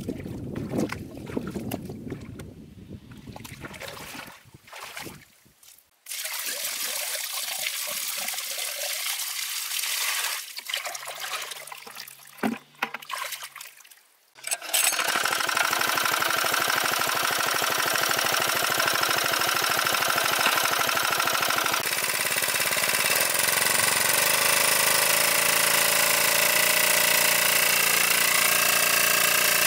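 Water trickling and splashing for the first half. About halfway through, a large water pump's engine starts up suddenly and then runs steadily with a rapid even beat.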